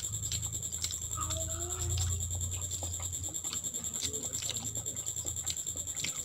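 Bare fingers mixing soft rice with dal curry and omelette on a plastic plate: many small sticky clicks and squelches, over a steady low hum.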